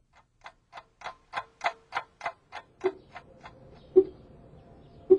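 Rapid, even ticking, about three ticks a second, that swells and then fades, followed by a few duller, lower clicks about a second apart.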